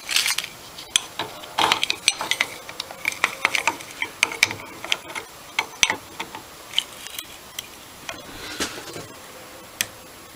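Irregular metal clicks, clinks and short scrapes of hand tools working at the stuck top ring of an aluminium Amal monoblock carburetor clamped in a bench vise. The ring is barely moving. The clicks thin out near the end, with one last sharp click.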